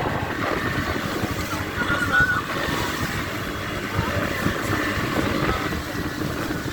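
Dhow ride through choppy sea: wind rushing over the microphone and water noise over a steady boat motor, with brief voices.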